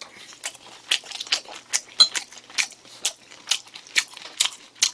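Close-miked chewing of a mouthful of food, a string of short wet smacks and clicks about two or three a second.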